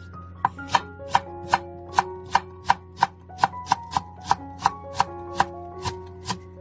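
Kitchen knife chopping steadily on a cutting board, in even strokes a little under three a second, over background music with sustained notes.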